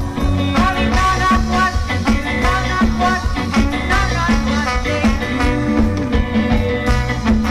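Live band music with a steady beat and bass line, and a wavering melody line over it.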